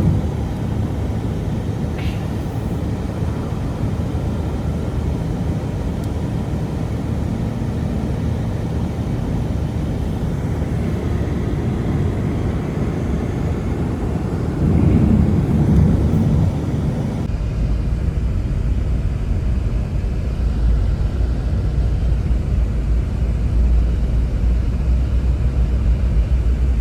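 Blizzard wind blowing hard and steadily, a loud low rumble with gusts, buffeting the microphone. It swells about two-thirds of the way through and turns deeper and duller soon after.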